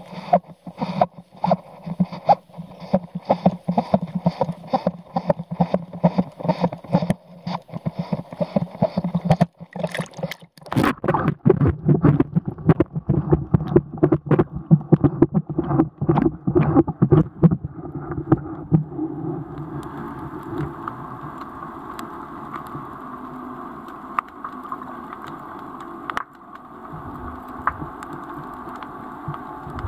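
Water sloshing and gurgling around a camera held in the water, with repeated knocks: evenly spaced at about three a second at first, then irregular, settling after about 18 seconds into a steadier rushing noise.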